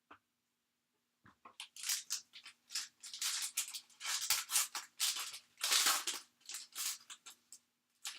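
Crinkling and tearing of a trading-card pack's plastic wrapper being opened and handled, in a quick run of crackly rustles that starts about a second in.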